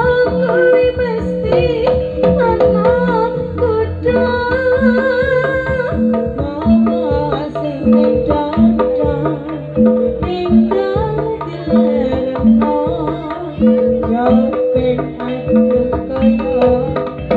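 Live East Javanese jaranan gamelan music: kendang hand drums beat a steady pattern under held gong-chime tones, with a wavering high melody line on top.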